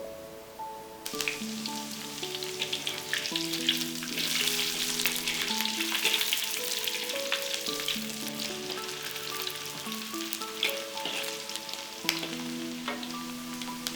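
Food frying in hot oil, a dense sizzle with crackles that starts about a second in and carries on steadily, over melodic background music.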